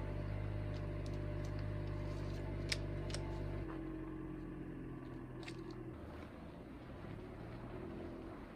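Toyota RAV4 engine idling steadily, with a couple of sharp clicks. After about three and a half seconds the engine note changes and slowly fades as the car pulls away.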